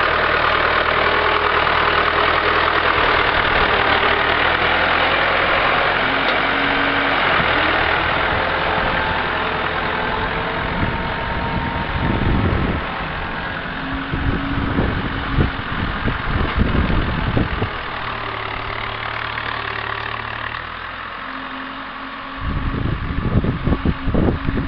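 International Harvester 584 tractor engine running as the tractor works with its front loader, its pitch shifting with the throttle. It is loudest at the start and grows fainter. Gusts of wind buffet the microphone in irregular bursts from about ten seconds in, and again near the end.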